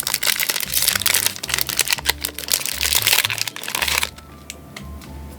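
Foil booster pack wrapper crinkling as a Pokémon card pack is handled and opened, over background music with a steady bass line. The crinkling stops about four seconds in.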